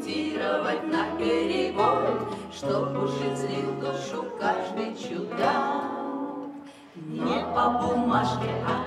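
A woman singing a song, accompanied by several acoustic guitars strumming and plucking.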